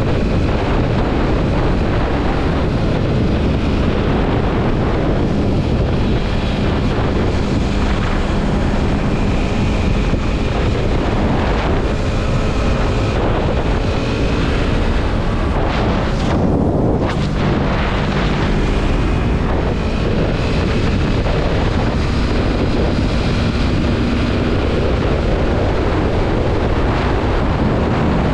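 Yamaha MT-03 motorcycle running at road speed, with heavy wind noise on the microphone. The engine's pitch rises and falls gently as the rider speeds up and eases off.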